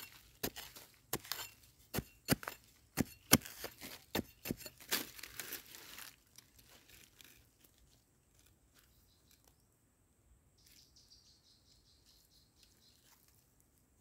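A hand digging tool strikes and scrapes into soil in quick, irregular blows while a wild yam tuber is dug out. The blows stop about six seconds in. Later a faint, pulsing insect trill comes in and stops again.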